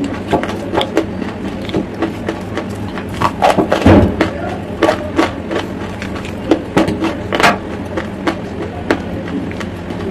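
Close-miked crunching and cracking of chalk lumps: a run of sharp, irregular crackles with a louder thump about four seconds in, over a faint steady hum.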